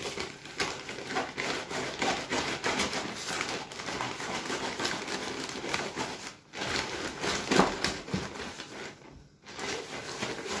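A plastic bag crinkling and rustling as a dry carp groundbait mix of seeds and powder is stirred in it, with the grains scraping. The stirring stops briefly twice, about six and a half and nine seconds in.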